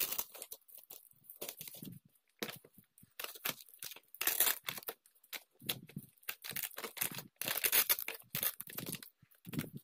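Rustling and crinkling of a thermal delivery bag's fabric and foil-faced insulated lining as it is handled, in many short irregular bursts, while the frame is fitted into the bag's side slots.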